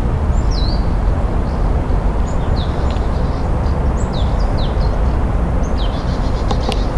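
Wind buffeting the microphone with a steady low rumble, while a small bird calls repeatedly with short high chirps that sweep downward. A quick trill comes near the end.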